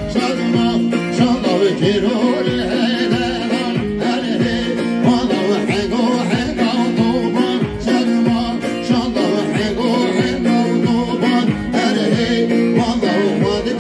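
Live band music: a man singing over a plucked saz (bağlama) and keyboard, with held chord tones and a steady low drum beat.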